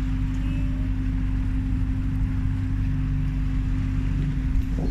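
Motorboat engine running steadily with the boat under way: a constant low hum with a steady tone over it, and a hiss of water and wind.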